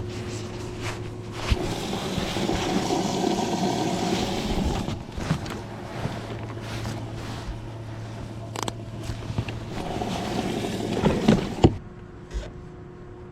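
Steady low hum from a fishing boat, with rushing wind and water noise that swells twice, a few sharp knocks, and a sudden drop in level near the end.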